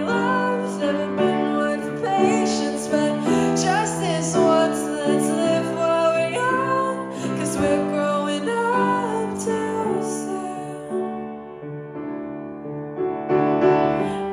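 Piano ballad: grand piano chords with a woman singing over them, her voice dropping out for a short piano-only stretch near the end.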